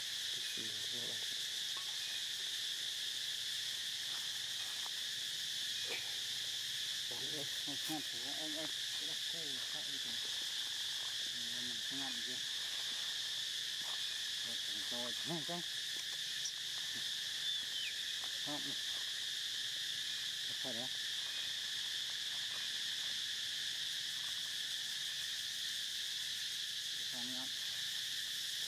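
Steady insect chorus: a continuous high, even buzzing drone of insects such as cicadas or crickets.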